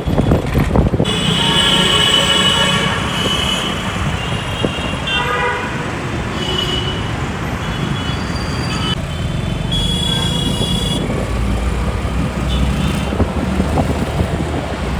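Road traffic with vehicle horns honking again and again, the longest honk about two seconds long near the start and another about ten seconds in, over a steady low rumble of traffic.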